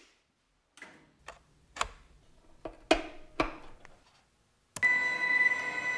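Laptop being set down and its keys pressed: about eight sharp, irregular clicks and taps over three seconds. Near the end a steady sound with several fixed pitches starts abruptly and holds.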